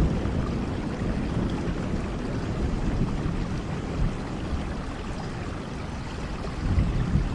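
Steady rain falling: an even hiss with a deeper rumble underneath that swells briefly a few times.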